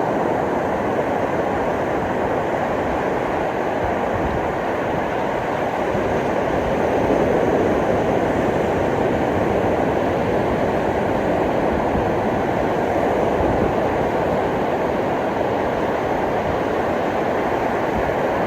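Steady rush of ocean surf on the beach, swelling slightly about seven seconds in.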